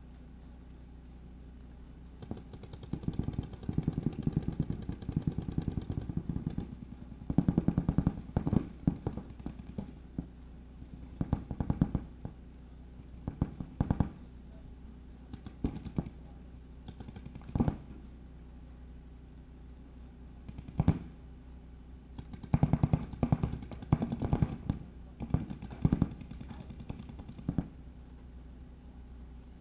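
Paintball markers firing rapid strings of shots, burst after burst with short pauses between, starting about two seconds in and dying away near the end.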